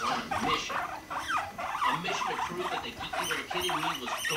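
Guinea pigs calling in a rapid string of short squeaks and chirps, some lower and some higher, as a male courts and chases a female to mate.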